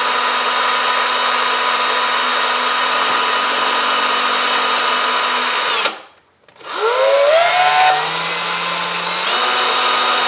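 Electric drill spinning a nail held in its chuck while it is filed into a rivet head. The motor runs with a steady whine, stops about six seconds in, then starts again, winding up in pitch, and speeds up once more near the end.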